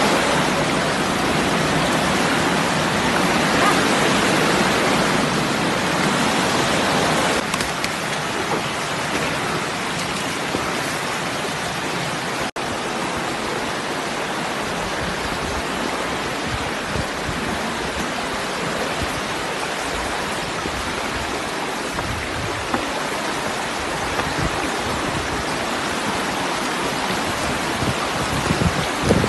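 Steady rush of a shallow rocky stream, water running over stones, with a momentary break about twelve seconds in.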